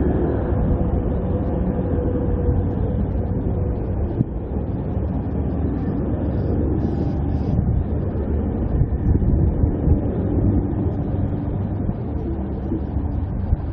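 Queensland Rail electric Tilt Train pulling out of the station, its carriages rolling past close by in a steady rumble of wheels on rails. A few sharper clacks come about two-thirds of the way through.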